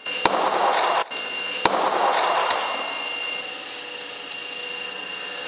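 A steel hammer striking metal on a wooden workbench: two sharp knocks about a second and a half apart, over a rushing noise and a steady high whine.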